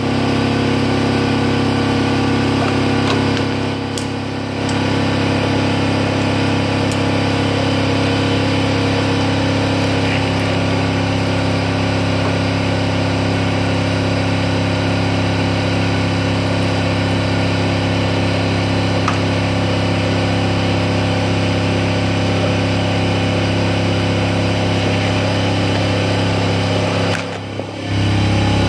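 Electric air compressor motor running steadily with a low hum, building tank pressure, then cutting off near the end.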